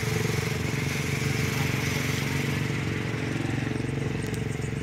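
A vehicle engine running steadily, with a fast even pulse.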